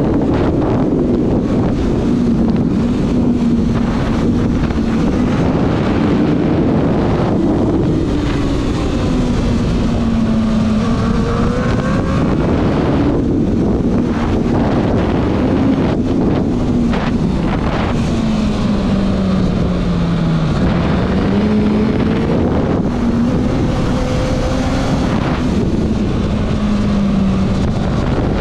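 Sport motorcycle engine running hard on the move, its pitch falling and rising again several times as the rider eases off and accelerates through the bends. Heavy wind noise on the helmet-mounted microphone.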